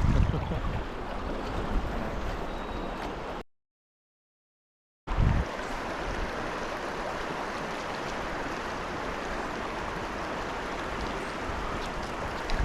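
Stream water running steadily. About three and a half seconds in the sound drops out to dead silence for roughly a second and a half, and comes back with a brief low thump.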